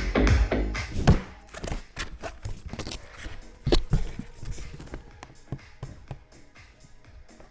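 Electronic background music fades out about a second in. Irregular taps, knocks and thunks of packaging and the speaker being handled during unboxing follow, loudest about one and almost four seconds in.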